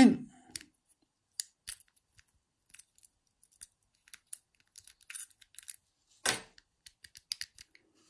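Key turning in a small Squire 220 lever padlock: a scatter of light metallic clicks and ticks as the key works the levers and its split ring jingles. The loudest click comes a little past six seconds in.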